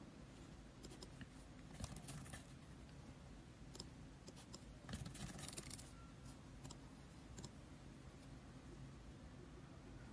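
Faint scattered clicks of typing and clicking on an Apple iBook G4 while setup fields are filled in, a few small clusters of keystrokes over quiet room tone.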